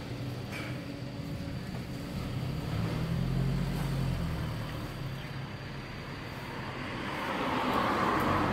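Road traffic passing: a low vehicle rumble swells a few seconds in, then another vehicle's noise rises and fades near the end.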